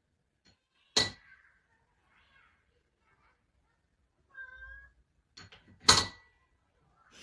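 Two sharp metallic clangs, each leaving a brief ringing tone, about five seconds apart. Between them a cat gives one short meow.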